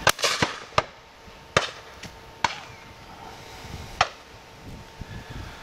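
Shotgun shots from a line of guns at driven partridges: about seven reports at irregular spacing, some close and loud, others fainter from guns further along the line. The loudest is right at the start and the last comes about four seconds in.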